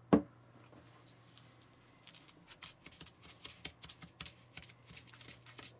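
One sharp plastic knock just after the start, then soft irregular clicks and crackles as fingertips press and knead candy powder dough in a small plastic tray.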